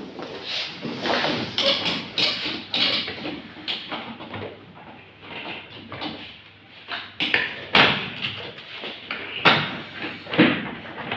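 Irregular knocks, clunks and scraping of chair parts being handled and tightened during a chair repair, with several sharp knocks in the second half.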